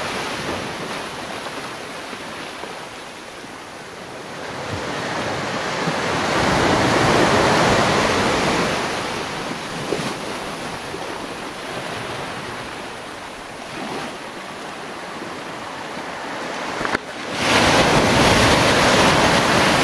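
Sea surf washing against a rocky shore, a steady rushing that swells and fades, with wind buffeting the microphone. About seventeen seconds in the sound breaks off for a moment and comes back louder.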